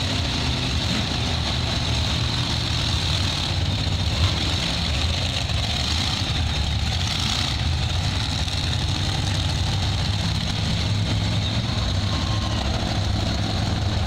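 Several monster truck engines running at idle, a steady low engine sound with no revving.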